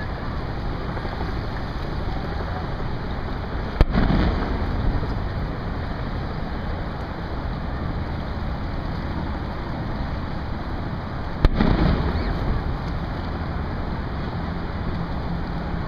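Two sharp booms about eight seconds apart, each trailing off in a low rumble for about a second, over steady wind noise on the microphone and water.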